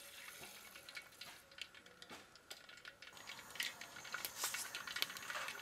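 Mustard seeds popping in hot coconut oil in a large cooking pan: faint, scattered crackles that come more often and a little louder in the second half, as the oil reaches tempering heat.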